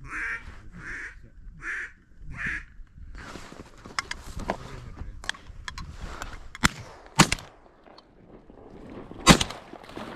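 Duck quacking: four quacks about three-quarters of a second apart. After them come scattered sharp clicks and knocks, the loudest near the end, over a low rumble.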